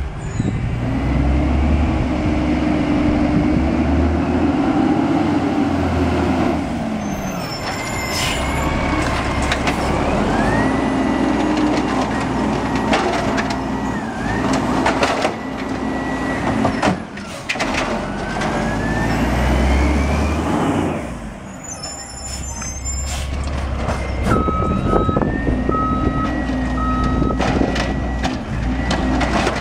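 Automated side-loader garbage truck at work. The diesel engine revs up and down as the hydraulic arm lifts and dumps carts, with rising hydraulic whines and several sharp bangs of carts slamming against the hopper. A short beeping comes near the end.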